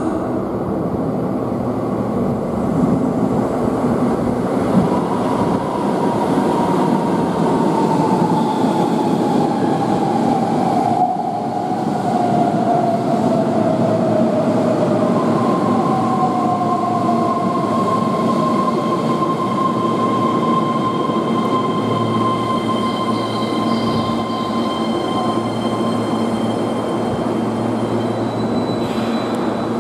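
A Keihan 13000-series electric train arriving in an underground station and braking to a stop, its running noise echoing off the tunnel. A motor whine falls steadily in pitch as it slows, then gives way to a steady high tone as it draws up.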